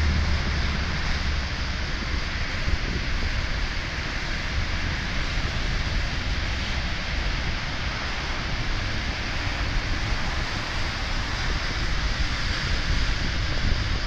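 Ocean surf breaking and washing in, a steady rushing hiss, with wind buffeting the microphone in an uneven low rumble.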